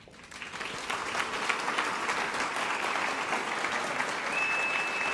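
Seated outdoor audience applauding, the clapping building up about half a second in and then holding steady. A thin steady high tone joins it near the end.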